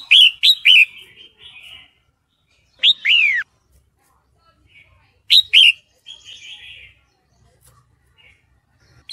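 Red-whiskered bulbul calling in short phrases of quick, falling notes: three at the start, one longer slurred note about three seconds in, and a pair a little past five seconds, with soft chatter between. The call is offered as that of a female in breeding condition calling for a male.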